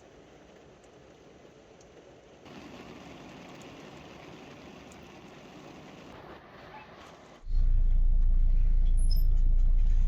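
Soft, even hiss of rain, a little louder from about two and a half seconds in. Near the end a loud, steady, low car engine rumble comes in suddenly and runs on.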